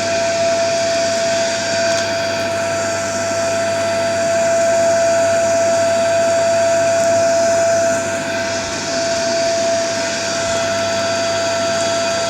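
Canadian Spa River Rapids hot tub pump unit running steadily, muffled inside a plastic box fitted as a sound-deadening enclosure. A constant whine sits over a vacuum-like hum, a little louder for a few seconds in the middle.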